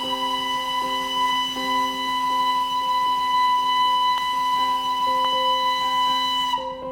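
Darjeeling toy train's steam locomotive whistle held in one long, steady blast with a hiss of steam, cutting off near the end, over background piano music.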